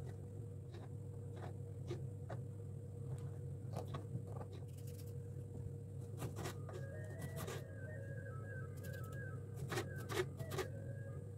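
Light, irregular knocks and clicks of kitchen utensils over a steady low hum, with a faint wavering tone for a few seconds past the middle.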